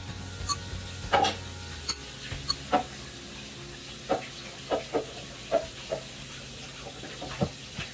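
Metal spoon clinking and scraping against a ceramic bowl while tossing a fern-shoot salad: about ten short, uneven clinks.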